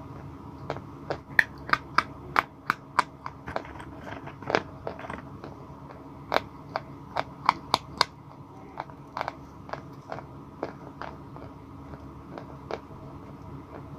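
A stick of white blackboard chalk being bitten and chewed: many sharp, dry crunching cracks, dense through the first half and thinning out towards the end.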